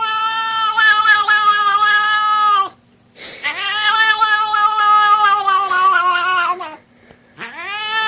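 Cat yowling in long, drawn-out calls: one ends about two and a half seconds in, a second lasts about three and a half seconds, and a third starts near the end. Each call slides down in pitch as it ends.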